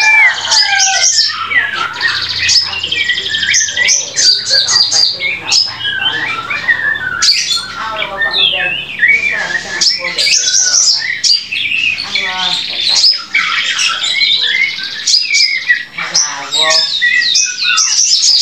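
Young white-rumped shama, about six weeks old, singing a long unbroken run of varied whistles, chattering notes and quick pitch glides, with rapid rattling trills twice in the second half.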